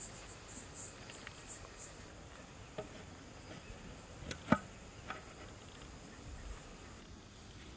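Crickets chirping faintly, a soft pulsing high trill that is clearest in the first two seconds, with a few light knocks, the sharpest about four and a half seconds in.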